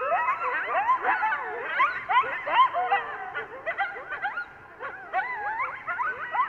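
A group of coyotes in a group howl: many voices overlapping in quick yips and wavering howls that slide up and down in pitch, echoing.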